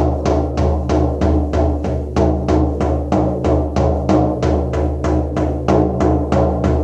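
Shamanic frame drum beaten in a steady, even rhythm of about three beats a second, each stroke ringing on in a deep boom: the steady journeying beat of a Reiki drum meditation.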